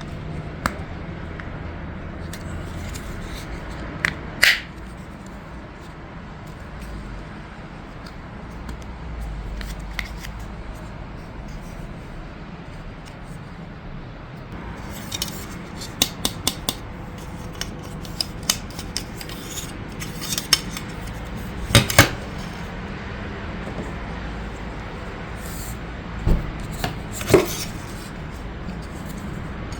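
Hard plastic toy-track parts and packaging being handled, giving a series of scattered clicks, taps and snaps, with sharper snaps about four seconds in, near the middle and near the end.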